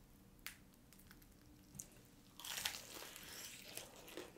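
Crisp fried chicken being bitten into with a crunch about two and a half seconds in, followed by softer chewing crunches.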